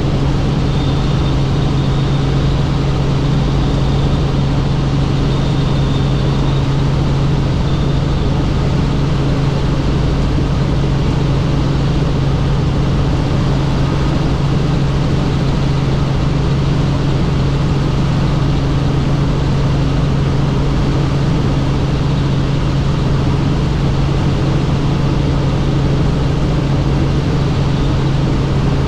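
Helicopter running: a loud, steady drone of rotor and engine with a strong low hum, unchanging throughout.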